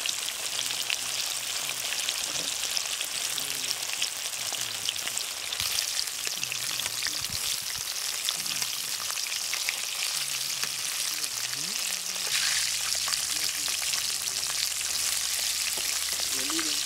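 Chicken pieces deep-frying in hot oil in a wide pan: a steady, dense sizzle with fine crackling. A low steady hum joins about twelve seconds in.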